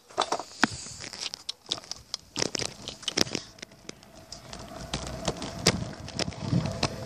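Handling noise from a phone held against clothing: irregular crackling rustles and sharp clicks as the fabric rubs and knocks on the microphone.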